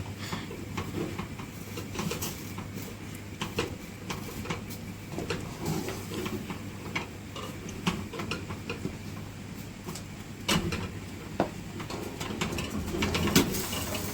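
Stiff ugali being stirred in a pot: irregular scrapes and knocks of the cooking stick against the pot, over a steady low hum.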